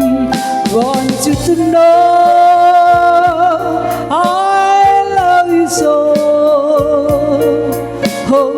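An elderly woman singing in long held notes with a slight vibrato, backed by a live band of drums, keyboard, bass and rhythm guitar.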